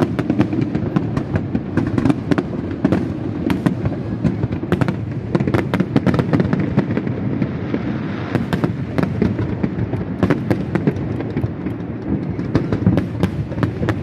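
Fireworks display going off continuously: a dense, irregular run of sharp bangs and crackles over a constant low rumble, with a stretch of hissing about eight seconds in.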